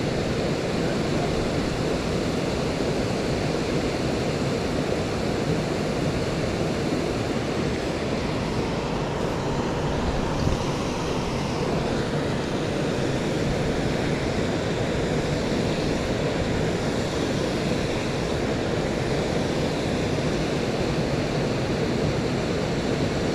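Steady rush of a small creek waterfall pouring into a plunge pool, an even, unbroken water noise.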